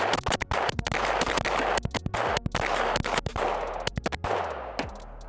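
Gen 3 Glock 17 9mm pistol fired in a rapid string of shots, stopping about four and a half seconds in.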